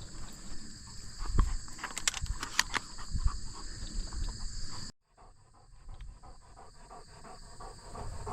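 Steady high-pitched chorus of field insects, with scattered faint clicks and rustles. It cuts out abruptly about five seconds in, then comes back quieter.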